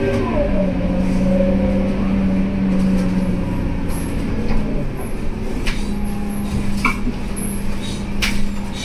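Scania K230UB bus with a ZF Ecomat automatic gearbox, running under way as heard from inside the passenger cabin. Its engine and transmission note drops in pitch in the first half-second, then holds a steady drone. A few sharp rattles come in the second half.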